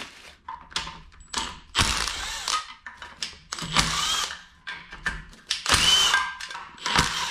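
Cordless impact tool spinning out the 10 mm oil pan bolts of a Toyota 1JZ engine in three short bursts, each under a second, with clicks and knocks of tools and bolts between.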